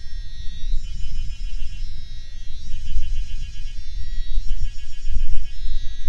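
Heavy rain ambience: a low, uneven rumble, with a high, fast-pulsing buzz over it in bursts about a second long, returning every couple of seconds.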